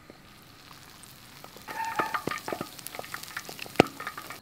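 Batter-coated king crab leg deep-frying in hot oil: a steady sizzle with crackling pops that grows louder about a second and a half in, with one sharper pop near the end.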